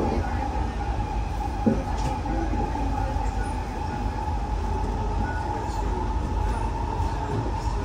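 C151B MRT train running at speed, heard from inside the carriage: a steady rumble of wheels on track with a constant high whine over it. There is a single knock about a second and a half in.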